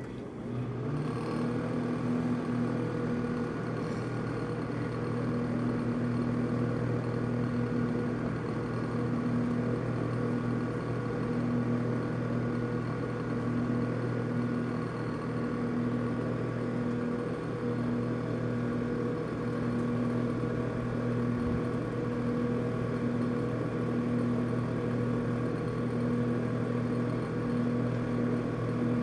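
Microwave oven running with a steady hum, switching on about a second in, while it heats a bag of popcorn. No kernels are popping yet.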